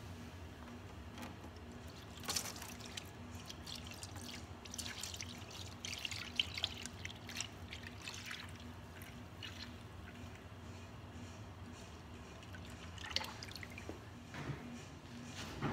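Melted beeswax being poured into a mold, with irregular splashes and drips over a steady low hum.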